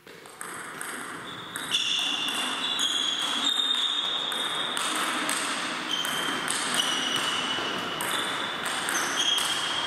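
Table tennis rally: the celluloid-type ball struck back and forth by rubber-faced paddles and bouncing on the table, a run of sharp clicking pings about two a second, with the echo of a large hall.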